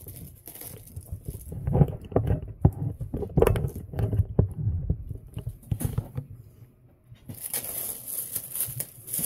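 A plastic storage tub's lid is handled and lifted off with soft knocks and rustling. About seven seconds in, the thin plastic sheet covering the tub starts crinkling steadily as it is peeled back.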